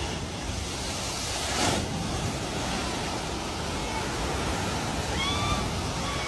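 Floodwater churning and splashing in a steady rush as a pickup truck drives through it, with a louder surge about one and a half seconds in.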